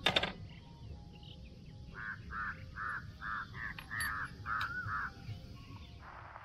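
A crow cawing, a run of about eight caws at two or three a second beginning about two seconds in, over a faint low rumble. A sharp click right at the start is the loudest sound.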